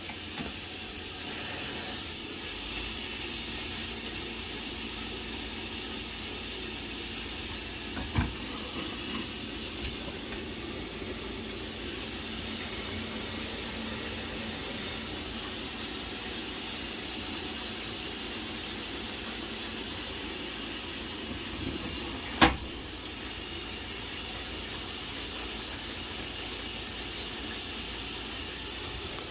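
Baxi 600 combi boiler running steadily with a hiss while it tries to light on demand for hot water. No ignition spark follows, because the spark generator on the circuit board has failed. There are two clicks, a small one about eight seconds in and a sharp, loud one about twenty-two seconds in.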